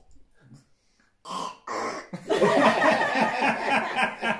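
A family laughing together, a toddler's giggles among the adults' laughter, breaking out about two seconds in after two short noisy sounds.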